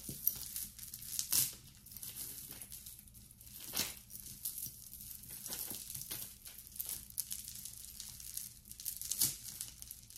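Beaded necklaces and metal chains rattling and clicking against each other as they are handled and untangled by hand, a continuous light jingling rustle with three sharper clicks.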